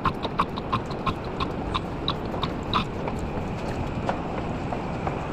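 Regular sharp clicks, about three a second, over steady machine noise in a metal workshop; the clicks grow fainter about three seconds in.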